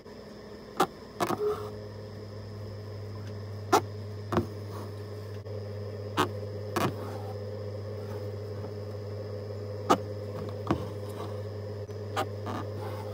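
Embroidery needle punching through fabric stretched taut in a hoop, about ten sharp taps at irregular intervals of a second or two, over a steady low hum.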